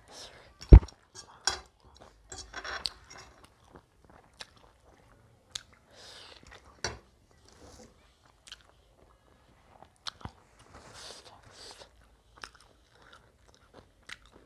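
Close-miked chewing of a mouthful of chowmein noodles: soft, wet mouth sounds with scattered small clicks. One sharp, loud thump about a second in.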